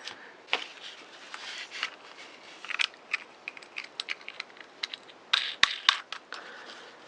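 Parts of a Daiwa 175 fishing reel being handled and fitted together: irregular light metal clicks, taps and short scrapes, with a quick run of sharper clicks about five and a half seconds in.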